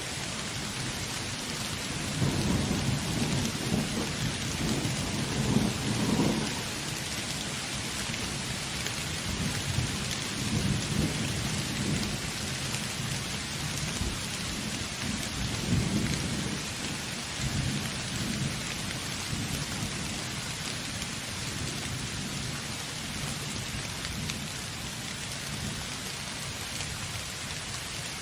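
Steady heavy rain with rolling thunder: a long rumble about two seconds in that swells for several seconds, and a second, weaker rumble in the middle that dies away, leaving only the rain.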